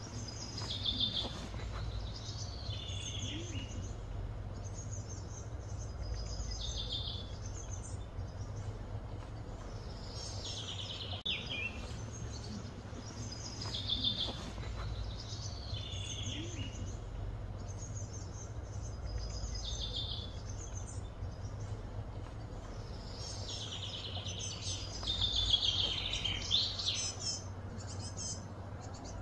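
Birdsong: a bird repeats a short, high, falling phrase every few seconds, longest and loudest near the end, over a steady low outdoor rumble.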